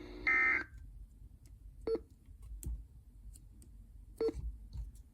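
Emergency Alert System end-of-message data burst: a short burst of high digital tones that marks the end of the alert. The steady background hum stops with it, and a few faint clicks follow about two and four seconds in.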